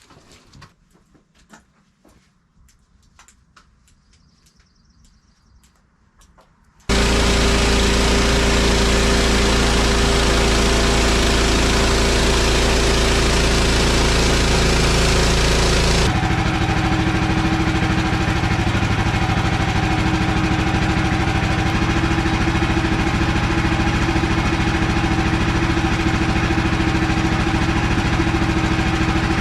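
Faint clicks and handling sounds in near quiet, then a small gasoline engine starts running loudly and steadily about seven seconds in; this is most likely the band sawmill's engine. Its sound changes abruptly about sixteen seconds in, then runs on steadily.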